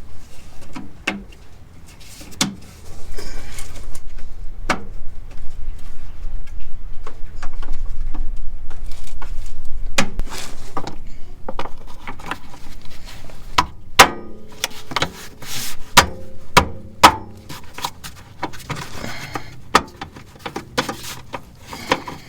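Scattered metallic clinks, clanks and knocks of tools and car parts being handled during reassembly of the rear shock absorbers, with a cluster of louder clanks about two-thirds of the way through.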